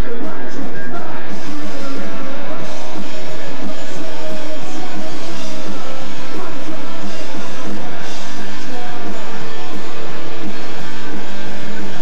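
Punk rock band playing live: loud electric guitars and drums, recorded on a home camcorder.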